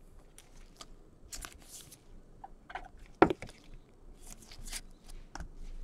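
Gloved hands handling trading cards: soft rustles and scrapes of card stock, with one sharp tap or click about three seconds in.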